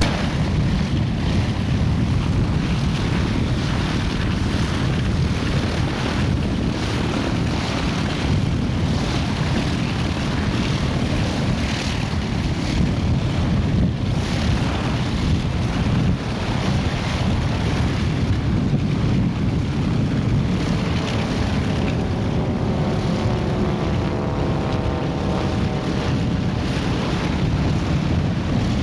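T-28 Trojan's radial engine running on the ground, heavily mixed with gusting wind noise on the microphone. Near the end a faint rising whine comes in over it.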